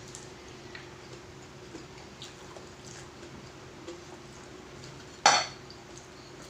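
Tableware clinking faintly during a meal, scattered light clicks, with one louder short clatter about five seconds in.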